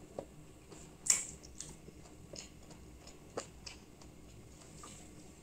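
Quiet eating sounds: a man eating curry and rice with his hand, with soft chewing and mouth noises and scattered small clicks. The loudest, a brief smack, comes about a second in.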